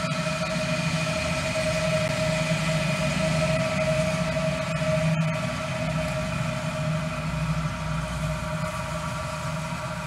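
Tractor engine running steadily close by: a low hum with a steady whine over it, swelling slightly in the middle. One brief click about five seconds in.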